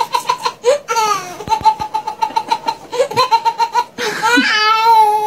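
Baby laughing: quick runs of short, evenly pitched 'ha-ha-ha' pulses, several a second, then a longer drawn-out laughing note near the end.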